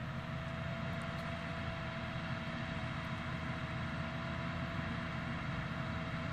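Tractor pulling a large Pöttinger loader wagon across a field, its engine running as a steady drone with a thin steady tone above it, growing slightly louder as it approaches.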